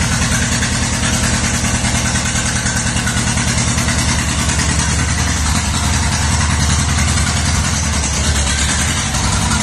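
The two-cylinder engine of a 1960 John Deere bulldozer running steadily just after starting, its even firing pulses clearly heard; the low note changes about halfway through.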